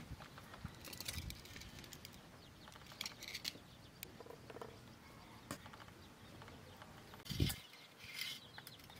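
Steel serving spoon clinking and scraping against steel bowls as curry is served, a few scattered faint clicks, with one louder low knock about seven seconds in.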